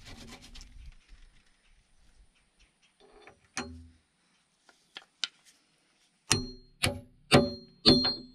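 Hammer striking the steel retaining pin of a new excavator bucket tooth to drive it home. Four sharp, ringing metal-on-metal blows come about half a second apart near the end, after a single lighter knock midway and a scraping rattle at the start.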